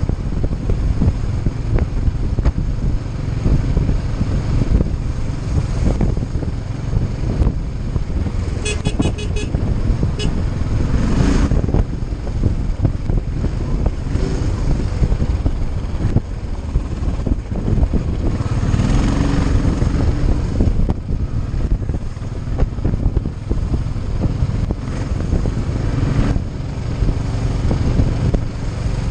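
Motorcycle engine running at road speed under steady wind and road noise on a bike-mounted camera. A brief run of high beeps sounds about nine seconds in.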